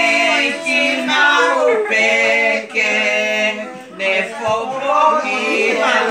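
Men's and women's voices singing a song together without instruments, long held notes with a wavering pitch.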